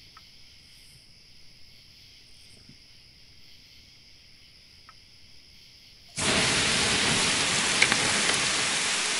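Faint evening ambience with a steady high insect hum and a couple of small campfire pops. About six seconds in, a sudden loud, even hiss of heavy rain starts and holds steady.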